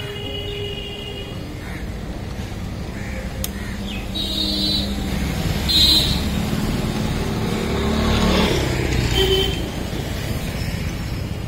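Road traffic going by: a steady rumble of vehicle engines, with one vehicle swelling and fading about eight seconds in. A sharp click comes about three and a half seconds in, and short high-pitched tones sound around four to six seconds in.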